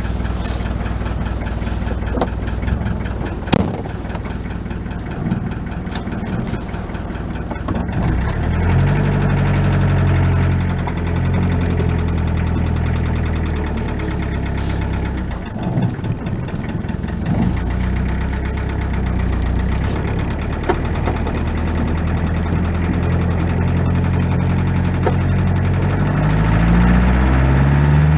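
Ford Sierra 2.3 diesel's four-cylinder engine running as the car is driven, heard from inside the cabin. Its pitch rises and falls several times and climbs near the end. The owner asks whether the engine is knackered or whether they all sound like this.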